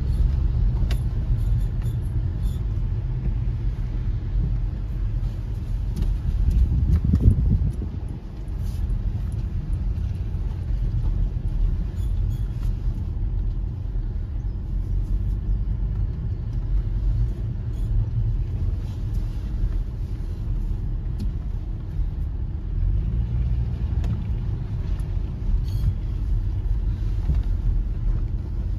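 Mercedes SLK280 rolling slowly with a steady low rumble, with faint brake squeaks now and then as it is steered. The squeal comes from aftermarket brake pads that lack the damping weights of the original Mercedes pads.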